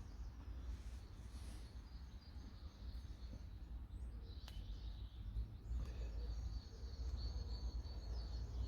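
Birds chirping and singing in the background over a steady low rumble of outdoor ambience, the chirping getting busier in the second half.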